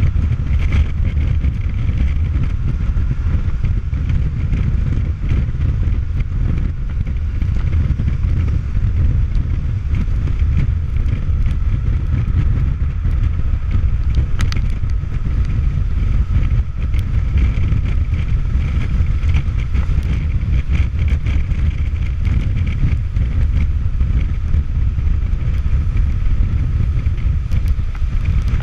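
Wind rushing over the microphone of a Kawasaki Versys motorcycle at highway speed: a steady low rumble, with a faint steady engine hum underneath.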